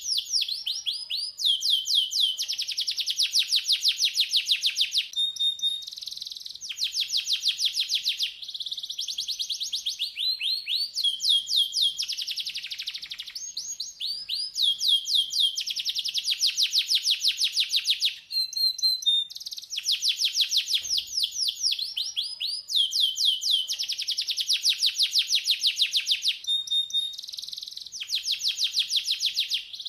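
Domestic canary singing continuously: rapid runs of quick falling notes, each run a second or few long, one after another with short breaks, and a few brief pure whistles in between.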